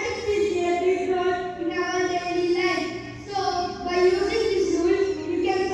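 Children singing a melody, with sustained notes that glide from one pitch to the next.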